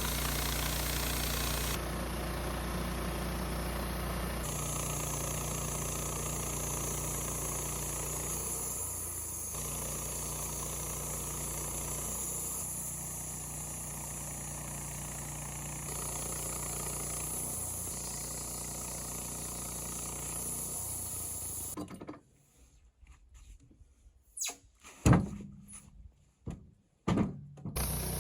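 Wood-Mizer LT15 band sawmill running steadily while milling an incense cedar log. About 22 seconds in, the running sound stops abruptly, and a few sharp knocks follow.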